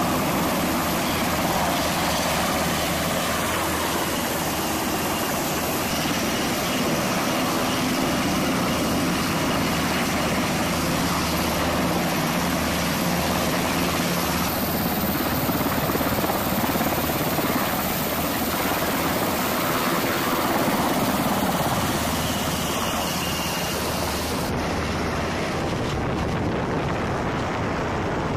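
U.S. Navy Seahawk helicopters running, a steady rotor and turbine noise as one lifts off and another flies away. The sound shifts abruptly three times.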